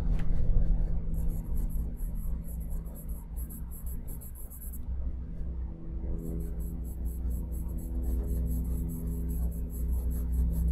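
Charcoal pencil scratching on layout paper in quick, repeated shading strokes, with a pause of about a second near the middle.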